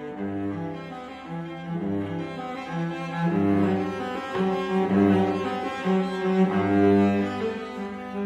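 Instrumental background music: low, sustained string-like notes moving from chord to chord over a deep bass note that repeats about every one and a half seconds.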